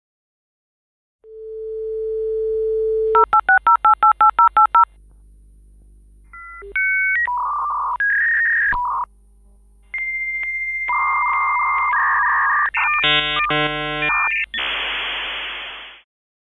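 Dial-up modem connecting. A steady dial tone is followed by a quick run of about ten touch-tone digits, then the whistles, two-tone warbles and chirps of the handshake, ending in a long hiss that cuts off suddenly.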